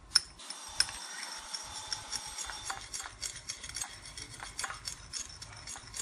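Metal spoon stirring seasoning in a white ceramic bowl, clinking against the bowl in quick, irregular taps, the loudest clink just after the start.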